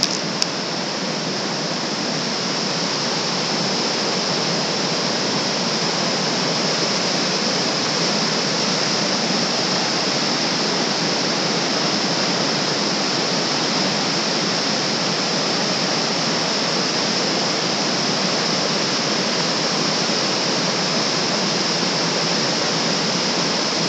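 Whitewater river rushing steadily over boulders, growing a little louder over the first few seconds. One brief click sounds near the start.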